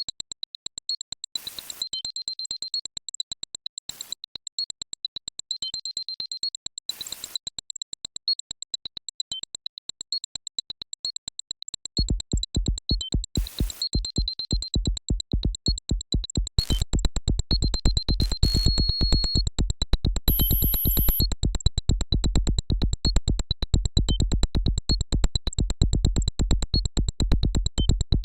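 Electronic synthesizer music with a fast, regular pulse and high bleeping tones; a heavy bass beat comes in about twelve seconds in and the track gets louder a few seconds later, with short noise sweeps along the way.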